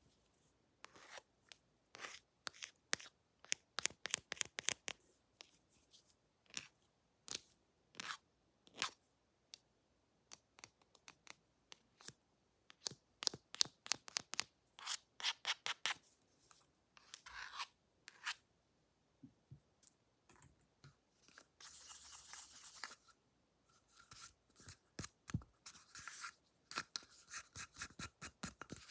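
Scissors snipping close to the microphone in quick runs of short, crisp snips, with a short hiss about two-thirds of the way through.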